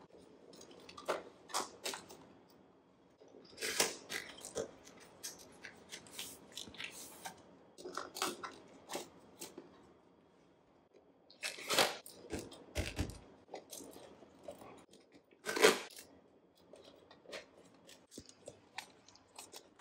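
Plastic freezer bags crinkling and rustling in the hands and being set down into a clear acrylic organizer, with light clicks and taps of plastic on plastic. The handling comes in irregular bursts, loudest about twelve and sixteen seconds in.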